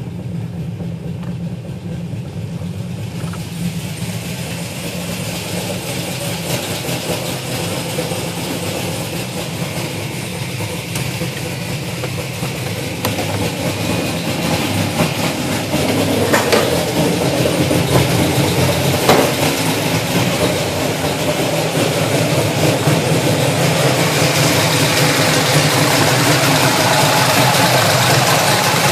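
Pontiac GTO V8 engine idling with a fast, light, rhythmic tick, which the owner takes for a bad lifter. The sound grows gradually louder and brighter over the stretch, most clearly from about halfway through.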